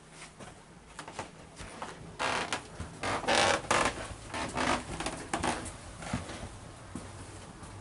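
Scuffing footsteps and clothing rustle in a narrow corridor. A cluster of irregular scuffs and rustles starts about two seconds in and is loudest in the middle.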